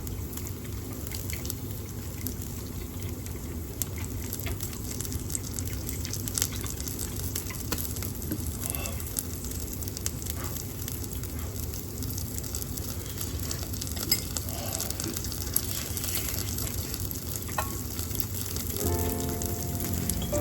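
Pork and onion yakitori skewers sizzling on an electric shichirin grill, with small crackles and pops of fat over a steady low hum from the range hood fan. A few steady musical tones come in near the end.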